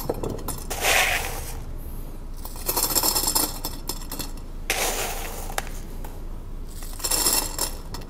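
Handfuls of distillation column packing dropped into a stainless steel column tube, clinking and rattling down inside it. About four pours, roughly two seconds apart.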